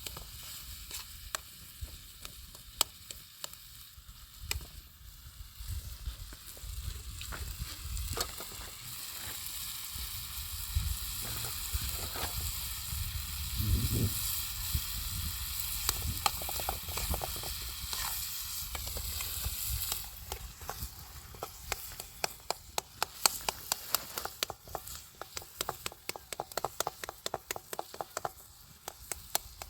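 Food sizzling as it fries in a pan, with a utensil clicking and scraping against the pan as it is stirred. The sizzle swells for a stretch in the middle, then eases, and near the end comes a run of quick, regular taps.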